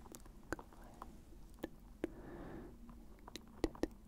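Close-miked mouth sounds: a string of sharp wet clicks and lip smacks, several coming close together near the end, with a short soft breathy sound a little past halfway.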